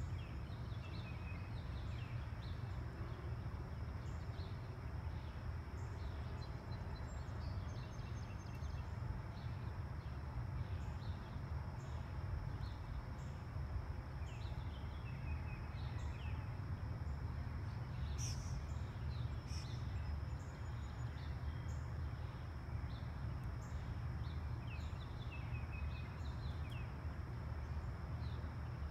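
Steady low background rumble, with small birds chirping on and off throughout.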